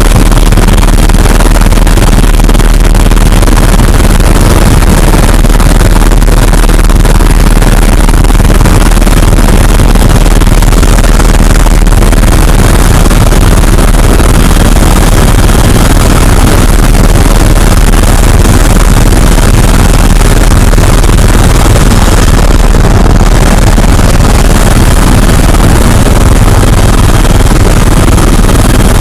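Tour helicopter in flight heard from aboard: loud, steady rotor and engine noise with a deep low hum, unchanging throughout.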